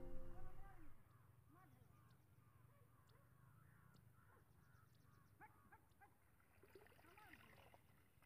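Near silence with faint, scattered bird calls. The tail of background music dies away in the first second.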